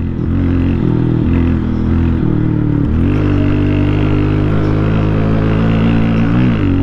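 Motorcycle engine running while riding, its note wavering with the throttle. About three seconds in it dips briefly, then climbs back and holds a steady, slightly higher note, with another short dip near the end.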